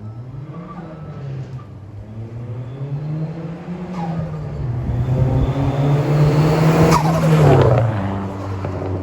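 Dodge Neon SRT-4's turbocharged four-cylinder engine accelerating through the gears, pitch climbing and dropping back at each shift, then passing by about seven seconds in, with its pitch falling as it goes past.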